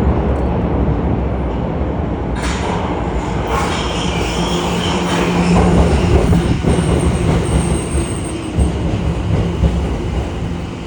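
Subway train running into the station and braking along the platform: a steady loud rumble of wheels on rail that grows brighter about two and a half seconds in, with a thin high squeal from the wheels and brakes near the end as it slows.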